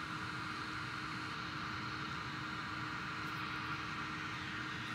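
Steady background noise, an even hiss with a faint constant hum under it, without change.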